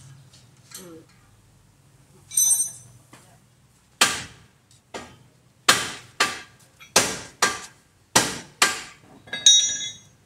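Hammer blows: eight sharp strikes, mostly in quick pairs. A ringing metallic clink comes before the first blow and another right after the last.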